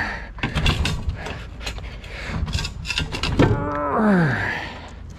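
Heavy scrap appliances shoved and wrestled into a loaded pickup bed: a run of knocks and clanks, then a long falling tone about three and a half seconds in.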